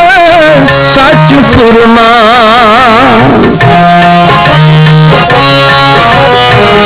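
Kirtan on harmonium and tabla: a held, wavering vocal line over the harmonium ends about three and a half seconds in. The harmonium then carries the melody alone in steady stepped notes, with the tabla keeping the rhythm.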